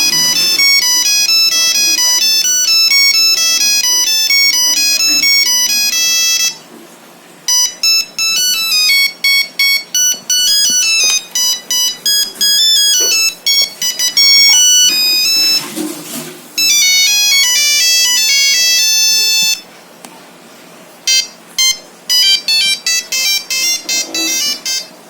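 Nokia 3310 playing its monophonic ringtones: quick melodies of electronic beeps, one note at a time, with a short pause about seven seconds in and another about twenty seconds in as one tune gives way to the next.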